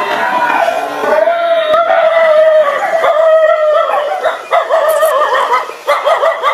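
A dog yelping and whining in fright. A long drawn-out cry comes in the first few seconds, then a string of short yelps near the end.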